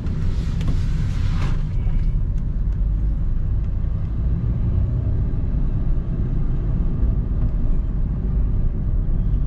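Inside the cabin of a 2010 Kia Soul driving slowly: steady low engine and road rumble. A brief rustle comes in the first second or so.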